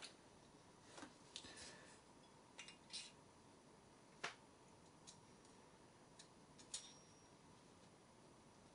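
Faint, scattered small metallic clicks and ticks, about eight over seven seconds with a sharper one about four seconds in, as a clutch bell is fitted onto an RC model nitro engine's clutch.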